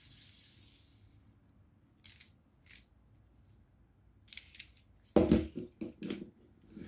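Plastic puzzle cube being handled: a few light clicks, then a cluster of louder knocks and thumps in the last two seconds.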